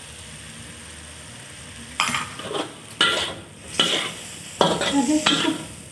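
Metal spatula scraping and tossing shrimp and boiled quail eggs around a wok over frying oil. After a quieter first two seconds of low sizzle, several sharp scrapes follow in quick succession.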